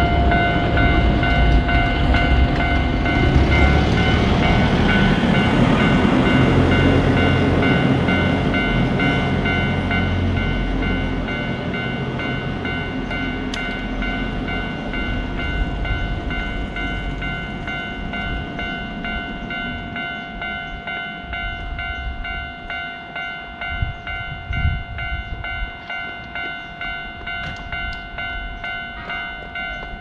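Japanese railway level-crossing warning bell ringing its repeated 'kan-kan' tone while a train rumbles through the crossing. The rumble is loudest over the first ten seconds or so and then fades, leaving the bell ringing on its own.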